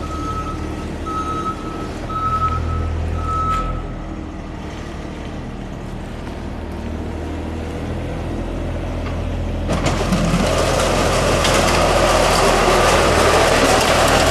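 Avant loader engine running with a steady low drone. Its reversing alarm beeps about twice a second and stops a few seconds in. About ten seconds in, a loud scraping hiss starts and holds as the plow's UHMW polyethylene cutting edge is pushed along the ground.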